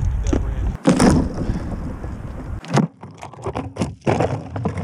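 Wind buffeting the microphone of an FPV quad's onboard action camera in irregular gusts, with a low rumble that cuts out abruptly about a second in, then a run of sharp clicks and knocks near the end as the camera is jostled.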